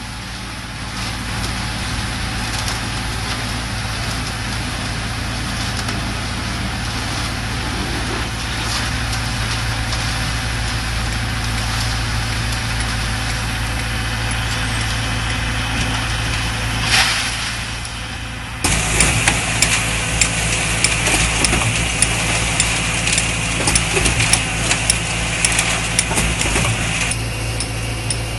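Diesel engine of a C3 concrete mixer with pump running steadily. About two-thirds of the way through, a louder, dense rattling clatter starts abruptly over the engine and eases off near the end.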